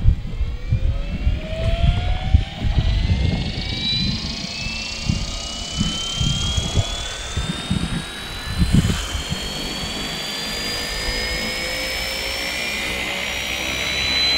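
Fly Wing FW450 V2 RC helicopter's electric motor and rotor spooling up from rest on a 3S LiPo, a whine rising steadily in pitch. Gusty low thumps in the first half give way to a steady hum.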